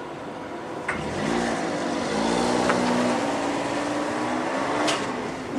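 A car engine pulling away and driving across the railway level crossing once the crossing bell has stopped, with its pitch rising briefly and then holding steady. A few sharp clacks are heard along the way.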